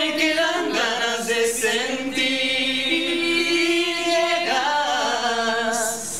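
Three young men and a woman singing a Spanish pop ballad a cappella in close harmony, holding long notes. The singing stops just before the end.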